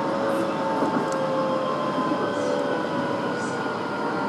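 Keihan 6000 series electric train running between stations, heard from inside the car: a continuous rumble of wheels on rail under a few steady motor tones that drift slowly lower.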